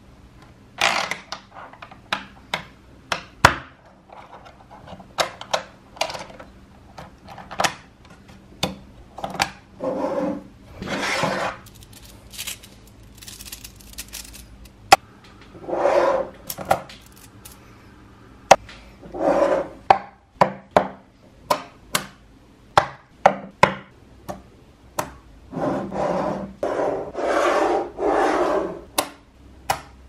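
Small magnetic balls clicking as they snap together, with stretches of rattling and rubbing as clusters of them are pressed and rolled into blocks on a hard tabletop.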